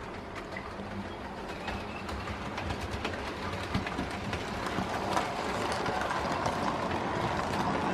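Model diesel locomotive and coaches running along the track toward and past the microphone: a rolling rumble with light clicks of wheels over the rail joints, growing steadily louder as the train comes near.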